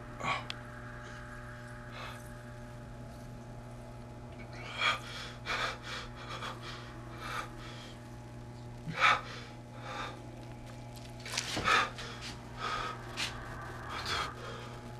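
A man breathing hard in irregular gasps and snorting sniffs, as if in distress, over a low steady hum. The loudest gasps come about nine seconds in and again near twelve seconds.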